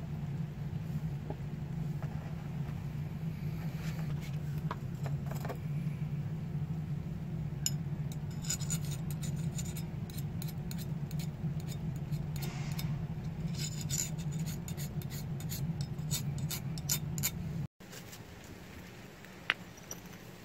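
A steel file scraped in many short strokes across the edge of a freshly oil-quenched knife blade of bearing steel, a file test for hardness after the quench. The scraping starts several seconds in over a steady low hum, and everything cuts off abruptly near the end.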